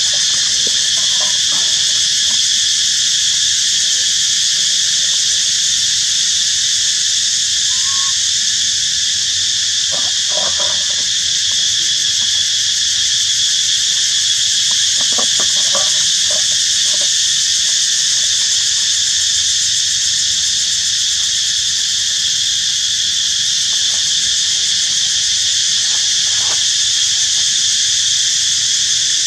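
Steady, loud drone of an outdoor insect chorus that does not let up. A few faint short sounds come about ten and fifteen seconds in.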